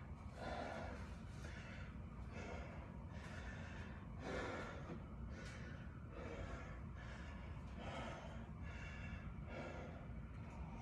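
A man breathing hard, in and out a little more than once a second, catching his breath after a set of burpees with curl and press.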